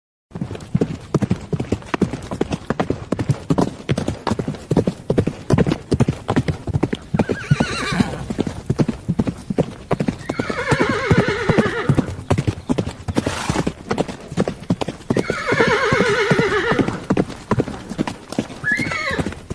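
Horse hooves clip-clopping in a steady, rapid patter of knocks. A horse whinnies in two long, wavering calls partway through, with a shorter call before them.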